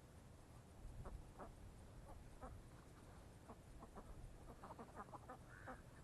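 A duck quacking faintly in a run of short calls that come faster and a little louder toward the end.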